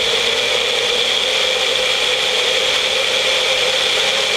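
Personal blender motor running steadily, blending a thick pancake batter of oats and banana, with a constant high whine over a rushing noise; it cuts off suddenly at the end.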